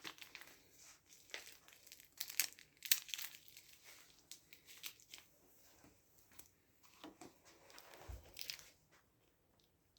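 Blood pressure cuff being handled and wrapped around a patient's arm: faint, irregular rustling and crinkling of the cuff fabric and clothing, with a dull thump near the end.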